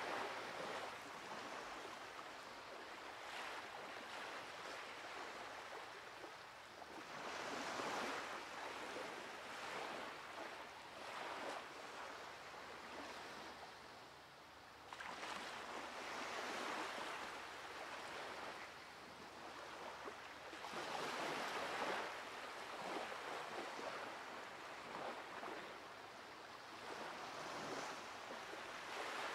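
Ocean surf breaking on a sandy beach, the wash swelling and fading about every six or seven seconds.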